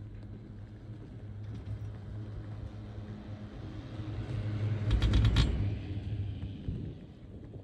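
Poma high-speed quad chairlift riding over a tower's sheaves: a steady low rumble from the haul rope swells to a loud rattling clatter of quick clicks about five seconds in, then fades away.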